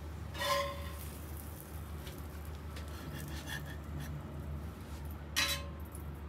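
A metal spatula clinks twice against cookware, once about half a second in and again near the end, each with a short ringing tone, with a few light taps between. A steady low hum runs underneath.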